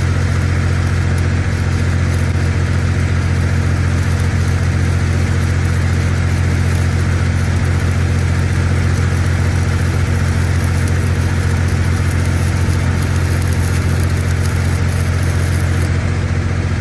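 An engine-driven welding machine drones steadily under the crackle and hiss of a stick welding arc. The welder is bridging an inch-wide gap by feeding a separate filler rod into the puddle ("Texas TIG"). The arc breaks off near the end.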